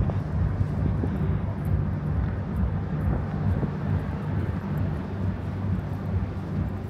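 Steady low rumble of a city street with an engine-like hum, typical of nearby motor traffic.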